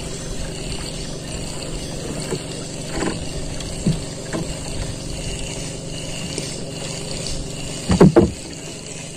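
Water lapping and trickling against a small wooden boat's hull under a steady low hum, with a few short gliding sounds, the loudest pair about eight seconds in.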